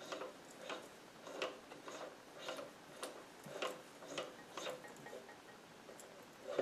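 Quiet, regular ticking, about two a second, from the SC2 mini lathe while it is worked by hand, with no motor running.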